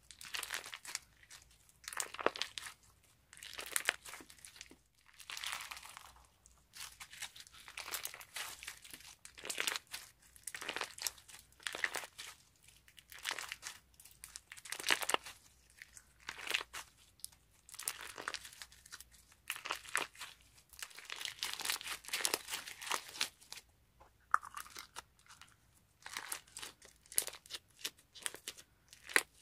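Crunchy slime packed with chunky white pieces being squeezed and folded between the hands, crackling and crunching in short bursts about every second or two. Near the end it is pressed back into its plastic jar.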